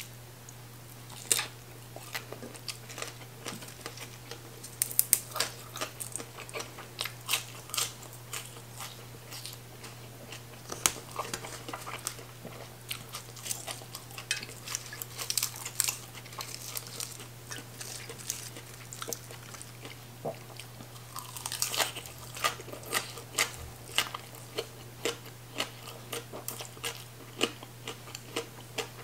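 Close-up chewing of crunchy shredded green papaya salad: irregular crunches, wet mouth clicks and smacks, with a steady low hum underneath.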